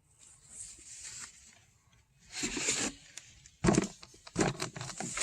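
Rustling and scraping as a potted potato plant and its soil are handled, with a few sharp knocks in the second half.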